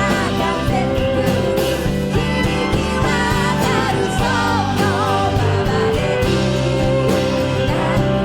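Live pop band playing at full volume: drums, bass, guitar and piano, with a wavering melody line on top.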